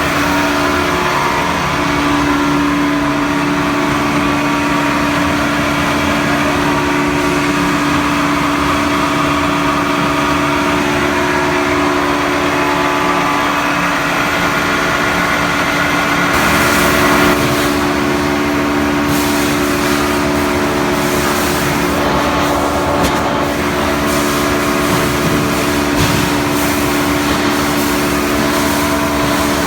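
Sawmill machinery running steadily: a loud, constant hum with several steady tones, growing hissier about halfway through, with scattered knocks and clatters later on.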